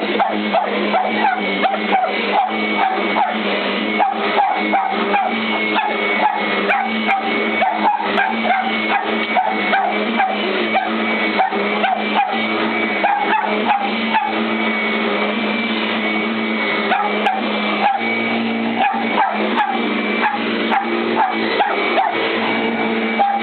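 Kirby upright vacuum cleaner running with a steady hum while a dog barks at it over and over in quick strings, the barking thinning out around the middle and picking up again near the end.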